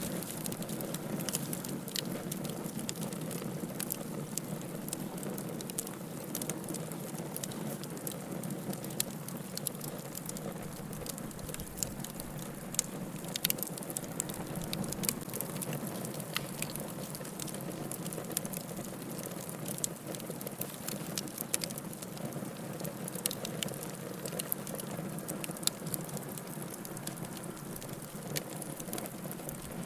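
Wood bonfire burning: a steady low noise of the flames under irregular sharp crackles and pops of the burning wood, a few of them louder than the rest.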